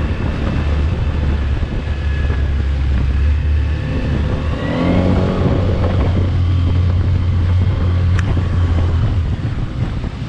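A Suzuki 15 hp outboard motor running steadily at speed, pushing a 10½-foot rigid inflatable dinghy fitted with a 9-pitch propeller, with a steady low drone.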